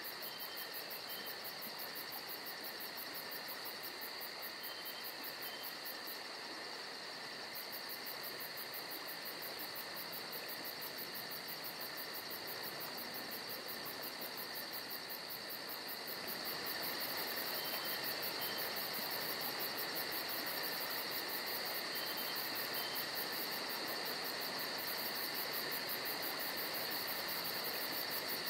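Steady insect chorus, a continuous high trill, getting a little louder somewhat past halfway through.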